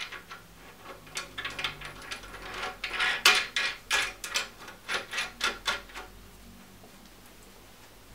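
Metal parts of a bicycle bottom bracket bearing press tool being fitted by hand onto its threaded bar: a run of small metallic clicks and scrapes, busiest in the middle, stopping about six seconds in.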